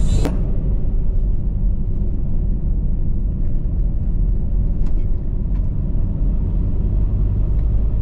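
Steady low rumble of a car on the move, heard from inside the cabin: engine and tyre noise on the road, with a couple of faint ticks about five seconds in.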